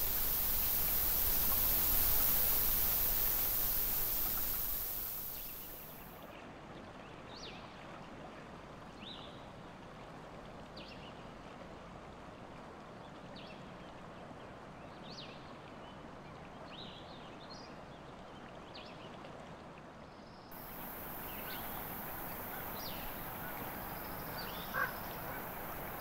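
Elk calling in a series of short, high, rising chirps, one every second or two. A river's steady rushing is loud for the first few seconds, drops away, and comes back for the last few seconds, with one brief louder call near the end.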